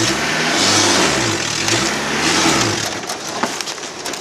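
A pickup truck engine revs up and down repeatedly, in about three swells, as its rear wheel spins and churns in wet mud trying to get the truck moving. Near the end the revving eases and a run of sharp crackling clicks takes over.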